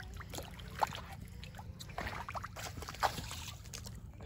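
Water splashing and sloshing at the river's edge as a lake sturgeon is held in the shallows, with two sharp knocks about one and three seconds in, over a steady low rumble.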